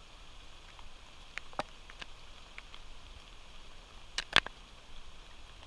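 Steady patter of rain, with scattered small clicks and taps; the loudest are a close pair about four seconds in.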